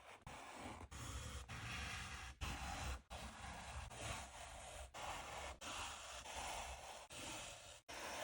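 Hissy rubbing and scraping against a leather baseball glove, heard in short clips broken by abrupt cuts every second or so.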